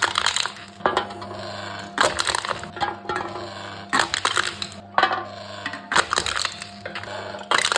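Aluminium drink cans being crushed one after another by a can-crushing machine: a crackling crunch of crumpling metal about every two seconds, over a steady low hum.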